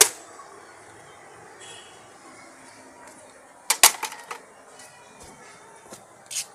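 Sharp knocks: one right at the start, a quick cluster of several about four seconds in, and another near the end, over a faint steady background.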